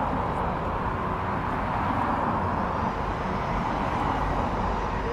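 Jet engines of a Ryanair Boeing 737 taxiing past at idle, a steady whooshing rumble, with the S7 Airbus A320's engines idling behind it.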